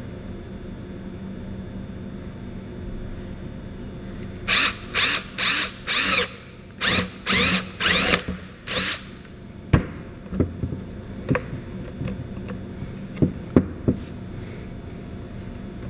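Cordless drill with a 9/16-inch spade bit boring through a plastic air-intake housing, run in about eight short trigger bursts. A few sharp knocks and clicks follow once the drilling stops.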